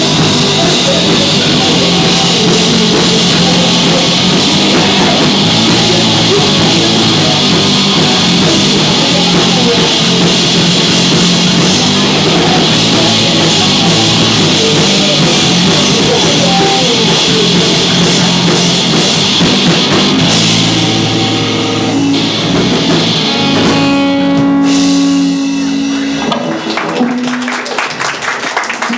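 Live rock band playing loudly: electric guitar, drum kit and singing. About 24 seconds in, the song ends on a held note that stops a couple of seconds later.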